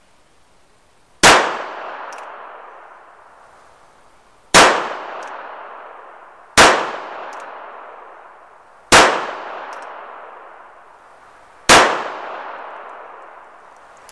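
Five shots from a North American Arms mini revolver in .22 Long Rifle, fired slowly, two to three seconds apart. Each shot has a long echoing tail.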